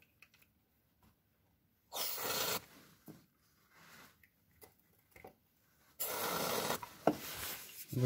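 Two short hissing bursts of aerosol lubricant spray, each under a second and about four seconds apart, directed at the rubber bushing of a car's rear shock absorber mount to cure a suspension creak. Faint clicks of handling the can come between them.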